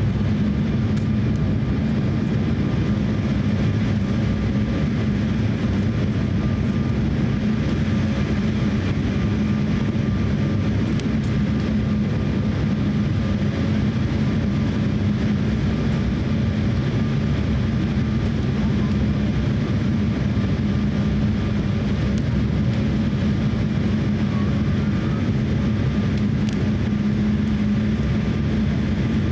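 Steady cabin noise inside an Embraer E170 airliner on final approach: the drone of its GE CF34 turbofan engines and the airflow, with a steady low hum and faint higher tones, unchanging throughout.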